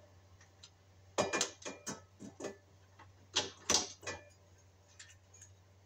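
Irregular light clicks and knocks as wires and parts are pushed and handled at the end wiring compartment of an electric baseboard heater: a cluster of clicks about a second in, a couple of louder knocks around three and a half seconds, and a few faint ticks near the end.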